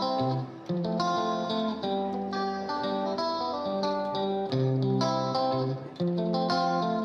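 Background music led by a plucked guitar playing a melody over changing chords at a steady pulse.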